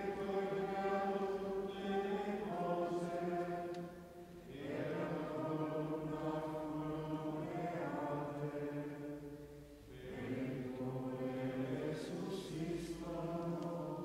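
Slow liturgical chant sung on long held notes, in three phrases with short breaks about four and ten seconds in.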